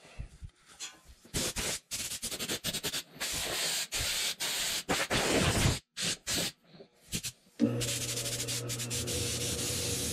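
Irregular scuffing and rubbing noises in short bursts with gaps. About three-quarters of the way through, a Grizzly variable-speed wood lathe motor starts up and runs with a steady hum.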